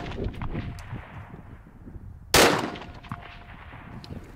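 A single AR-15 rifle shot about two and a half seconds in, with a long echoing tail. A faint ringing tone follows it under a second later. In the first second the echo of a shot fired just before dies away.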